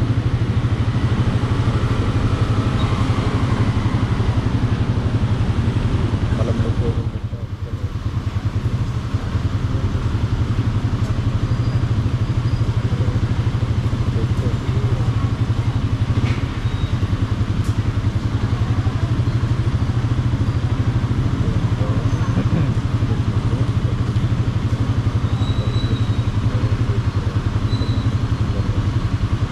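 Motorcycle engine idling steadily while the bike waits in stopped traffic, briefly quieter about seven seconds in.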